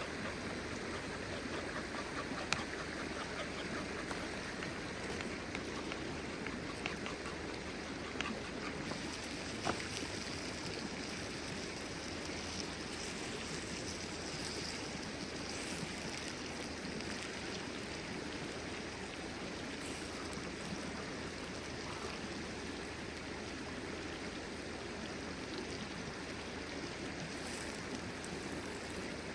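Steady rush of a flowing stream, with a few faint clicks.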